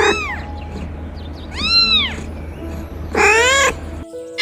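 A kitten and a mother cat meowing: three separate meows, each rising and falling in pitch, over a low steady hum.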